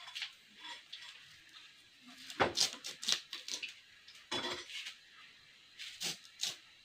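Kohlrabi being peeled on an upright floor blade: about ten short, crisp scrapes and cuts in uneven groups, the loudest between about two and a half and three and a half seconds in.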